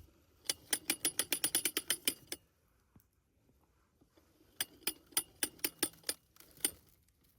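Ratchet clicking rapidly as portable electric fence line is cranked tight, in two runs of about two seconds each, the second starting a little past halfway.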